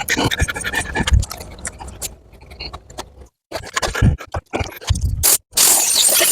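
Scraping and clicking of hands and debris in a riding mower's engine compartment, then about five and a half seconds in a loud, steady hiss of air blowing packed grass out of it.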